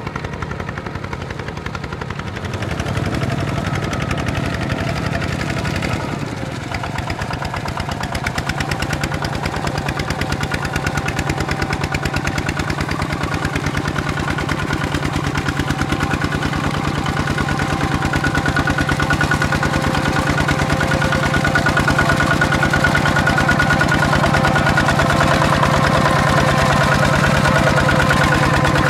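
Kubota ZT155 single-cylinder diesel of a walking tractor (power tiller) running steadily under load in paddy mud, a rapid even chugging that grows louder through the second half.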